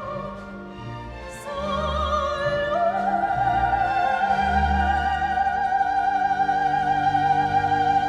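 Operatic-style singing voice holding long notes with vibrato, stepping up to a higher note about three seconds in and sustaining it, over orchestral accompaniment with low bass notes.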